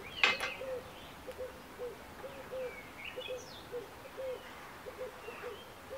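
A dove cooing in the background: a long run of short, soft notes all at the same pitch, with a few small birds chirping faintly. A short rustle comes just after the start.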